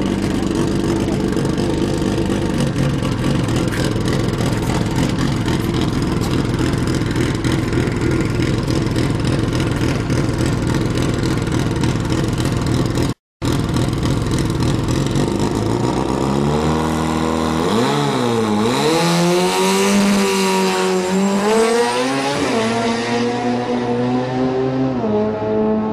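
Turbocharged Subaru STI drag car running at the start line with its engine held steady, then launching down the strip. The revs climb hard, broken by several sudden drops as it shifts up through the gears.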